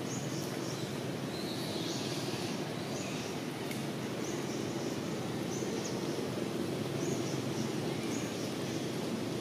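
Outdoor ambience: a steady low hum with short, high chirps repeating about once a second, typical of birds calling.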